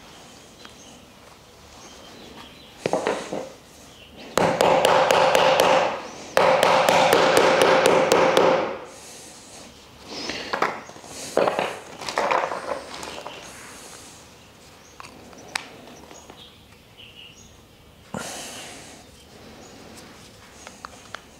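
Wooden plant-stand parts knocked and tapped together by hand, with scattered short knocks. The loudest sound is two stretches of about two seconds each, a third of the way in, of a steady buzzing tone with rapid clicking.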